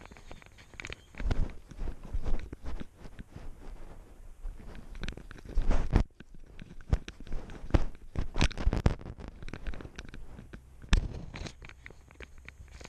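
Dry leaves, twigs and brush rustling, crunching and scraping against a GoPro worn by a cat as it scrambles low through undergrowth, with irregular knocks and thumps of the camera. The loudest thumps come about 1, 2, 6, 8 to 9 and 11 seconds in.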